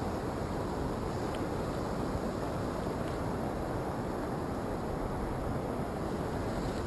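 Steady rush of a mountain stream's flowing water, an even noise without breaks.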